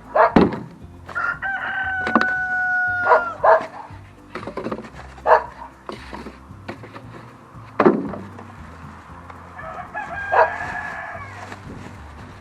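A rooster crows twice: a long held crow starting about a second in, and a fainter one near the end. Several sharp knocks sound in between, and these are the loudest events.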